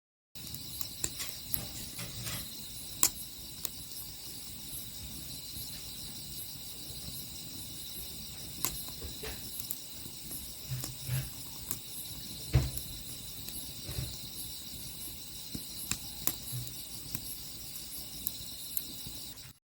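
Crickets and other insects chirping steadily in a high, pulsing chorus, with scattered sharp clicks.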